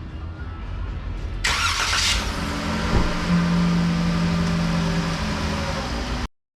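A vehicle engine starting with a sudden loud burst about a second and a half in, then running steadily, cut off abruptly near the end.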